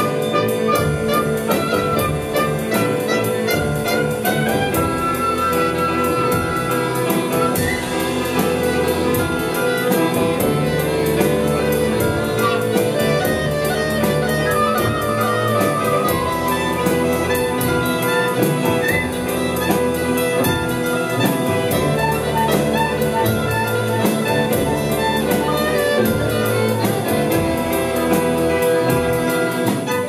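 Live band music: a bowed violin, clarinet and flute playing melody lines over a steady, quick percussion beat, with low brass and keyboard underneath.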